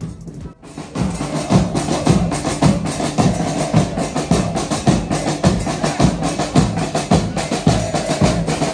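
Marching supporters' drum line beating a steady, driving rhythm on bass drums and other percussion. The drumming comes in about a second in, after a brief quieter moment.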